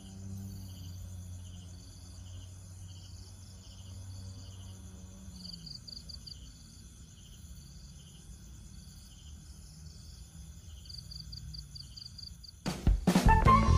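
Night insects chirping: a steady high buzz with repeated trains of high-pitched chirps, over a low hum that fades out about halfway through. About a second before the end, a sudden loud burst of clicks and tones cuts in.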